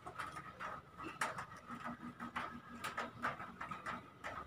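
Light clicks and rubbing from hands adjusting a ring light's tripod stand, phone holder and cables, scattered and irregular.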